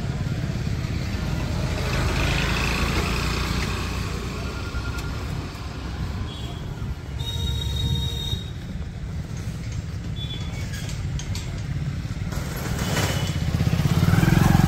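Busy street traffic: a steady low rumble of motorcycle and car engines, with a few brief high-pitched tones, the longest about a second and a half, midway through.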